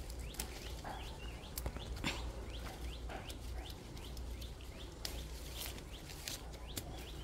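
Small birds chirping: short, hooked chirps repeated many times. Scattered light rustles and clicks of leaves and vines being brushed through.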